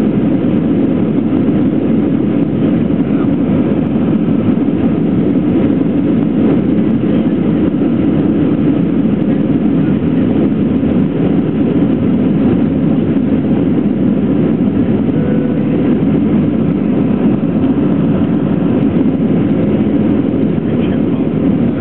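Airbus A321 jet engines at takeoff power, heard inside the cabin as a steady, loud roar with air rushing past the fuselage, through the takeoff run and the start of the climb.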